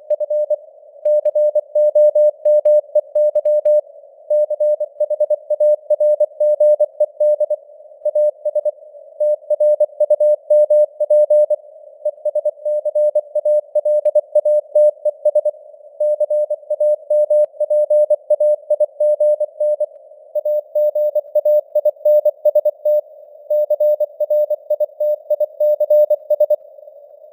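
Morse code (CW) sent as one steady mid-pitched tone keyed on and off at 24 words per minute, with brief pauses every few seconds. A narrow band of hiss around the tone stands in for receiver noise.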